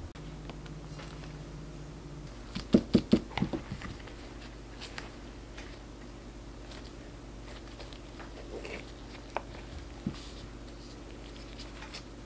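Handling noises from baking work: a quick run of five or six soft knocks about three seconds in, then a few scattered faint clicks, over a steady low hum.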